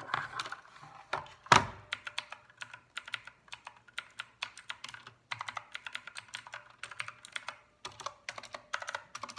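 Keys of a Redragon K552 mechanical keyboard being pressed in quick runs of clicks, with a louder thump about a second and a half in.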